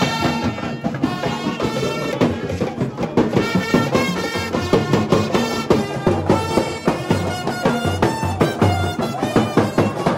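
Marching band music: bass drums beating a quick, steady rhythm under a held horn melody.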